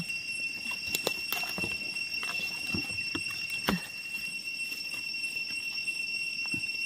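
Insects keep up a steady high-pitched drone throughout. Over it come scattered crackles and snaps of dry leaf litter and twigs being stepped on and brushed through, the sharpest about a second in and again near the middle.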